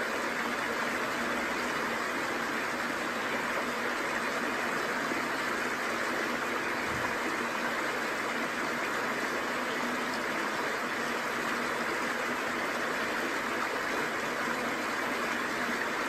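Steady rushing of a waterfall and the stream below it, an even noise that does not change.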